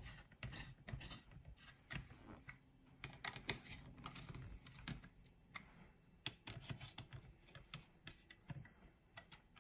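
Small hand screwdriver turning and tightening screws that hold a circuit board in a plastic case: faint, irregular small clicks and ticks.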